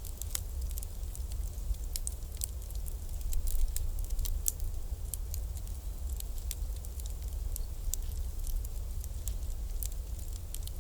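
Bonfire crackling: irregular sharp pops and snaps over a steady low rumble.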